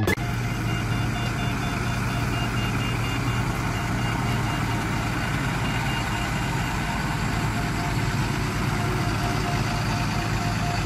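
Dump truck's diesel engine running steadily at low speed, with a reversing alarm beeping in a steady repeating pattern over it for the first several seconds.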